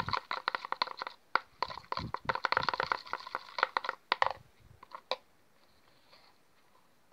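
A thin metal rod stirring blue-tinted liquid glue in a plastic bowl: a quick run of sticky clicks and taps that stops about four seconds in, with one more click about a second later.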